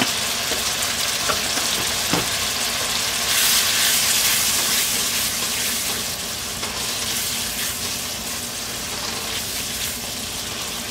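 Tomatoes, onion and spice powders sizzling in hot oil in a pan as a silicone spatula stirs them. The sizzle grows louder a few seconds in, then eases slightly.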